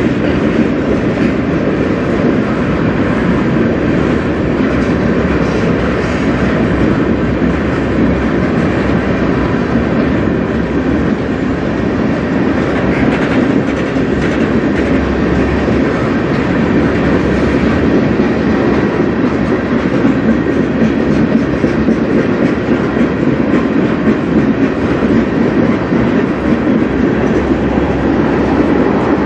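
Freight train of rail tank cars rolling steadily past at close range: a loud, continuous rumble of steel wheels on the rails.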